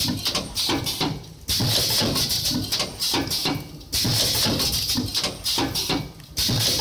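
Automatic wet wipe packaging machine running, with fast mechanical clattering and clicking and a hissing rush that comes back about every two and a half seconds.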